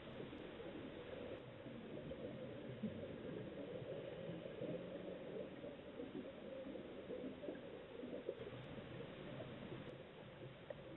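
Underwater reef ambience picked up by a camera resting on the seabed: a steady, dense crackle of tiny clicks with no diver breathing or bubbles.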